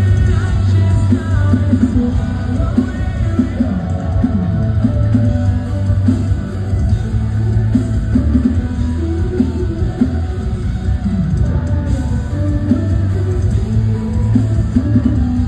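Live rock band playing at full volume: a sung lead vocal over guitar and drums, recorded from within the crowd.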